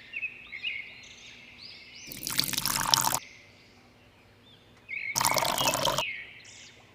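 Water pouring in two bursts of about a second each, with repeated high bird chirps underneath.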